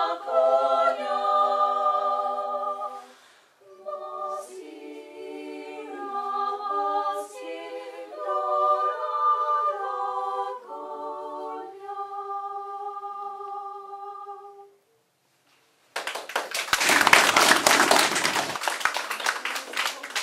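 A small women's choir singing, several voices in harmony, for about the first fifteen seconds. After a brief break, an audience applauds until the end.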